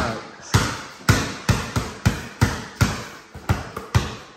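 Basketball dribbled on a tile floor: a steady run of sharp bounces, about three a second, each echoing briefly in the room.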